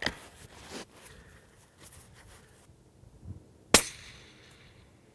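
A single shot from a suppressed Ruger Precision Rifle in 6.5 Creedmoor about three-quarters of the way in: one sharp crack with a short ring-out. A few sharp clicks come right at the start.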